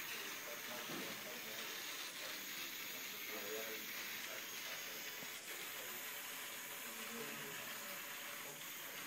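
Steady hiss of room noise with faint, distant voices murmuring underneath.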